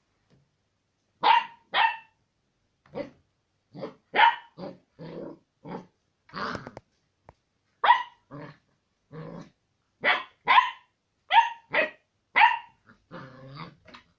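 Old English Sheepdog (bobtail) puppy barking at its own reflection in a mirror: a string of short, high-pitched yaps with gaps between them, and a longer, lower-pitched grumble near the end.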